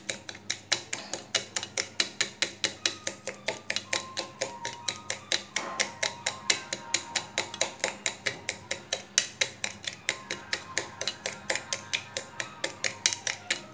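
Metal spoon stirring lassi in a stainless steel tumbler, clinking against the inside of the tumbler in a steady rhythm of about five clinks a second as powdered sugar is mixed in.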